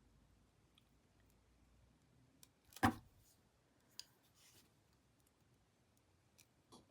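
Near-quiet room with a few small clicks, the loudest a single knock just under three seconds in and a lighter click about a second later.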